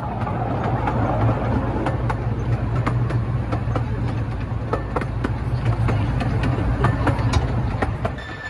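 Ride noise aboard a miniature railway's open carriage: the small diesel locomotive's steady engine drone under the rumble of the wheels, with irregular clicks and rattles from the track and carriages.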